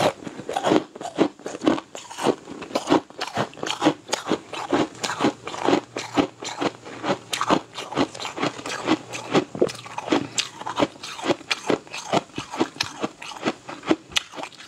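A person chewing crisp, crunchy food close to the microphone: a continual run of sharp crunches and crackles, a few a second, unevenly spaced.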